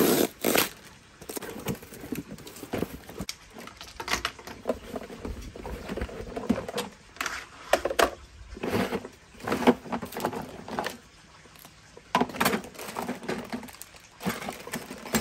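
Unpacking a cardboard box of plastic shed parts: a blade slitting the packing tape at the start, then cardboard flaps and hollow plastic parts knocking and clattering as they are handled, and a plastic bag of hardware rustling near the end. An irregular string of rustles and knocks, loudest at the start.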